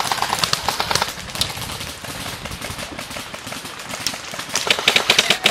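Airsoft replica M4 rifles firing full-auto: a fast rattle of rapid shots at the start, scattered quieter shots in the middle, and another rapid burst about four and a half seconds in.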